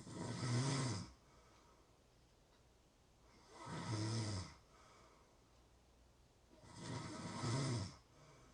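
A sleeping person snoring: three snores about three and a half seconds apart, each about a second long, with a low buzz under a breathy rasp.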